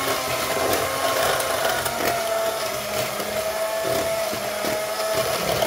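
Electric hand mixer running at a steady speed with a constant motor whine, its beaters creaming butter and powdered sugar in a plastic bowl.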